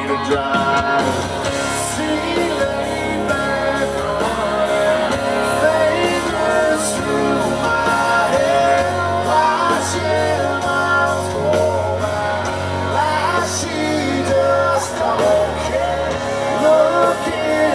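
Live country-rock band playing loudly through a PA: electric guitars, bass and drum kit with a sung lead vocal.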